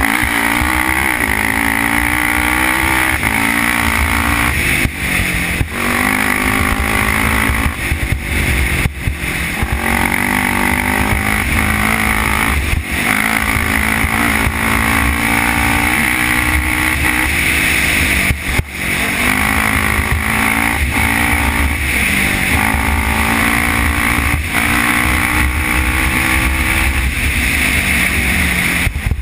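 Honda TRX450R quad's single-cylinder four-stroke engine revving hard at speed. Its pitch climbs repeatedly and drops back with brief dips as the rider shifts and blips the throttle, over steady wind rush on the helmet microphone.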